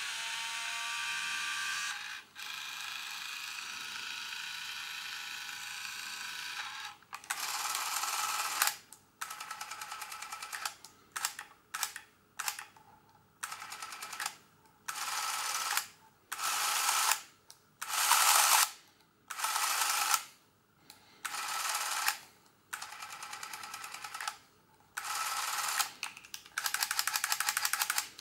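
Braun Nizo 148 XL Super 8 film camera's motor running. It runs once for about seven seconds, then starts and stops in many short runs of about a second or less with brief gaps between them.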